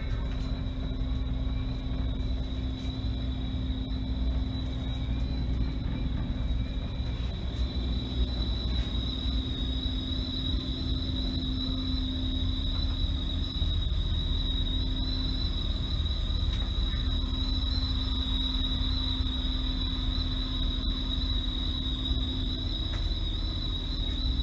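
Steady low drone of a fishing boat's engine and machinery heard inside the cabin, with a constant low hum and a high whine running over it.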